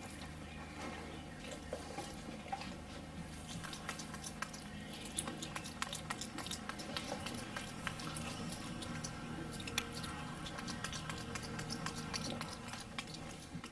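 Capuchin monkey chewing bratwurst, lips smacking: a steady run of small wet clicks and smacks.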